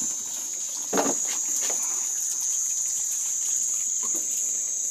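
Night insects chirring in a steady high trill, over water running from a tap into a basin, with one short louder sound about a second in.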